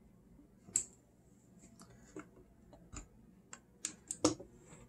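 Irregular sharp clicks and taps of a screwdriver and small metal parts against the sheet-metal motor plate and linkages of an opened Technics SL-3300 turntable during reassembly, loudest once near the start and again about four seconds in.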